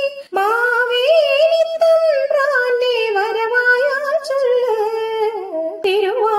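A woman singing a Malayalam Onam song in long, wavering held notes with no clear words, a fresh phrase starting near the end.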